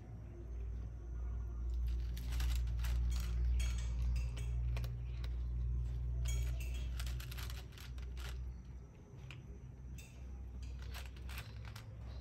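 A cat crunching dry food pellets from a plastic tray: irregular crisp crunches and clicks, over a low steady rumble.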